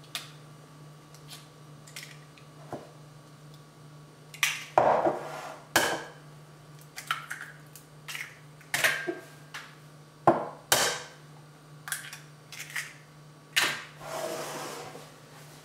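Eggs being cracked against the rim of a glass bowl: a series of sharp taps and cracks of shell on glass at irregular intervals, with light clinks of glass as the bowls are handled.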